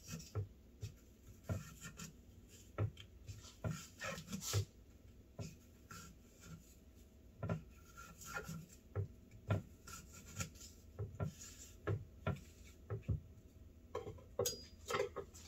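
A paring knife cutting and coring an apple on a wooden cutting board: irregular light taps and scrapes of the blade against fruit and board, roughly two a second.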